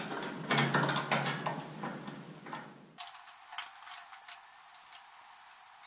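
Gloved hands handling metal parts: a run of light metallic clicks and clinks that thins to a few scattered clicks about halfway through.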